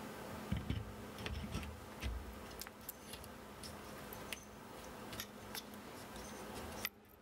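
Light clicks, taps and a few soft knocks of a laser engraver's metal frame and rail parts being handled and fitted together by hand.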